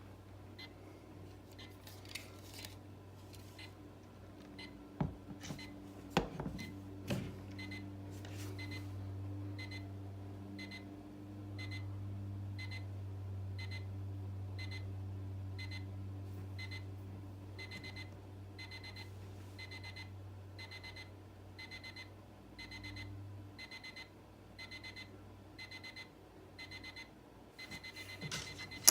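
LEGO Star Wars stormtrooper alarm clock sounding its alarm: short high beeps repeating over and over at a steady pace. It is fainter than the owner remembers, which she thinks may mean the speaker is broken or blown.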